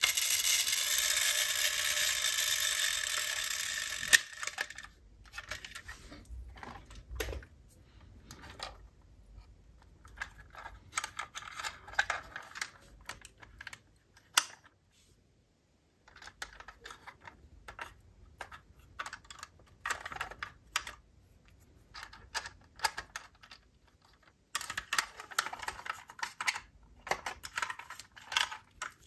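Die-cast toy cars being handled: irregular light clicks and clatter of small hard parts. A loud steady rushing noise fills the first four seconds and ends in a sharp click.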